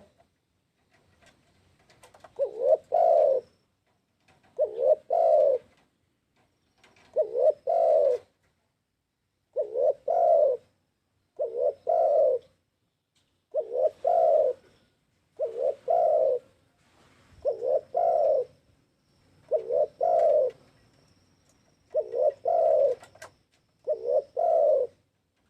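Spotted dove cooing: a low, two-part coo phrase repeated about every two seconds, some eleven times.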